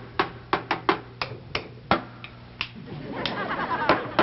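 Drumsticks tapping an uneven beat on a desktop: about a dozen sharp clicks, some in quick pairs.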